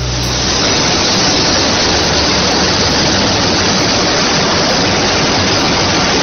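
Steady, loud rushing noise of an aluminium coil processing line running, with the coated strip feeding over its rollers.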